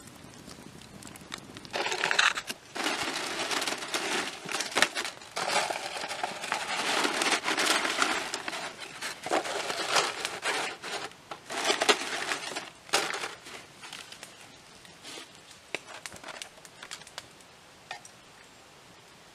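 Plastic packaging crinkling and rustling in bursts as tortilla chips are handled and laid out on plates, starting about two seconds in and dying down to a few faint clicks near the end.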